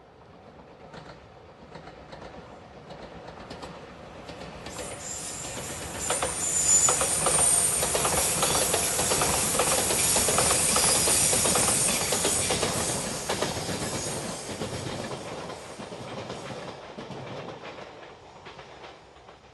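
A JR Shikoku limited express train passing close by. Its rumble and hiss build from about four seconds in, stay loud for several seconds with a rapid clickety-clack of wheels over rail joints, then fade away as it goes.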